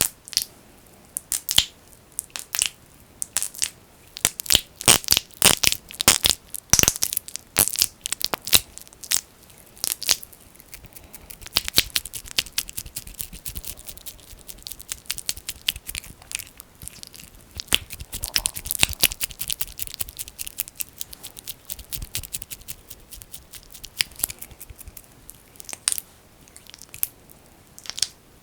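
Fingers kneading thick, sticky Vaseline (petroleum jelly) on an ear microphone, making quick wet crackles and squelches. They come in irregular runs, busiest in the first half and thinning out near the end.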